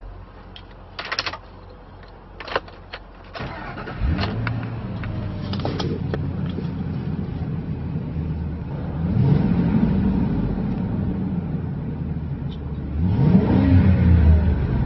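Ford 5.4-litre V8 of a 2003 F-250 pickup: a few sharp clicks, then the engine catches about four seconds in and settles to a steady idle. It is revved twice, about nine and thirteen seconds in, the second rev higher, to about 3,000 rpm.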